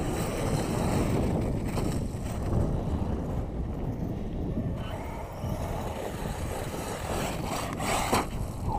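Wind buffeting the microphone over the running of an electric radio-controlled truck on a gravel pile, with a short louder burst near the end as the truck jumps.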